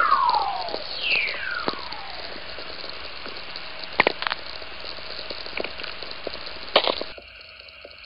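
Whistlers picked up by a VLF radio receiver and played as sound. These are lightning radio pulses guided along Earth's magnetic field, with the higher frequencies arriving first. Two descending tones glide quickly down in pitch, one ending just under a second in and the next starting about a second in. They sit over a steady hiss with sharp cracks of spherics from lightning, and the hiss drops away about seven seconds in.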